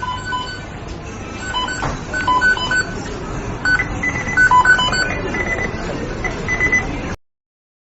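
McDonald's kitchen beeping: many short electronic beeps at several different pitches, overlapping in irregular runs over a steady background din. It cuts off suddenly after about seven seconds.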